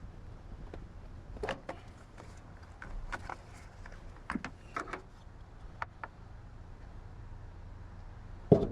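Scattered light clicks and knocks of hand work on plastic parts at the engine-bay fuse box, with one louder knock near the end. No engine cranking or running.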